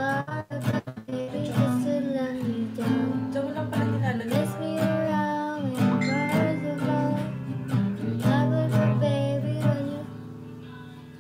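Nylon-string acoustic guitar strummed in quick chord strokes, then a young woman singing over the guitar's held chords. It grows quieter about ten seconds in.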